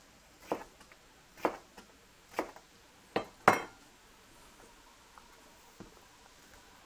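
A kitchen knife slicing a bell pepper thinly, the blade knocking on the cutting board: five short, sharp knocks in the first three and a half seconds, then one faint tap.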